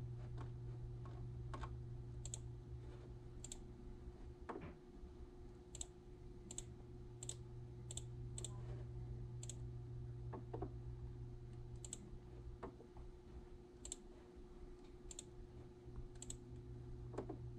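Sparse, sharp clicks, roughly one a second and unevenly spaced, over a steady low electrical hum, with a few softer knocks.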